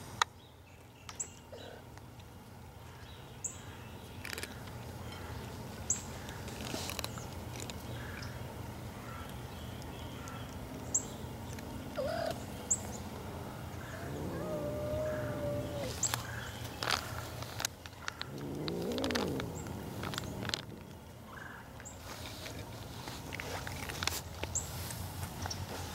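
A cat meowing twice: a long, fairly level call about halfway through and a rising-and-falling one a few seconds later, among scattered light clicks.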